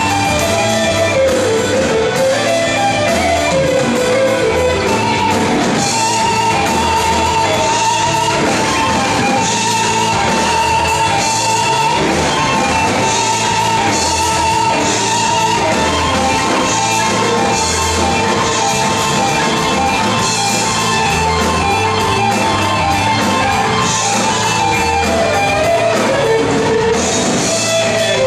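Live rock band playing an instrumental passage: an electric guitar lead with long, wavering held notes over bass guitar, drum kit and keyboard, all with a steady beat.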